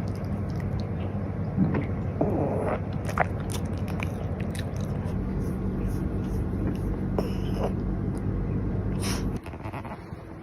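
Small Maltipoo dog eating his food fast, with repeated short crunches and clicks of chewing and biting. A steady low hum runs underneath and cuts off about nine seconds in.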